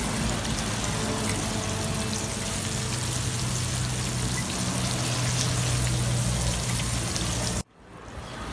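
Hot oil sizzling and bubbling as wontons deep-fry in a wok, with a steady low hum underneath. The sound cuts out abruptly near the end and fades back in.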